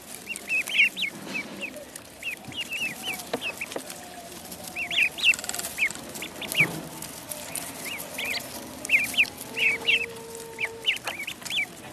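Ducklings peeping: many short, high cheeping calls, often several in quick succession, that keep coming throughout.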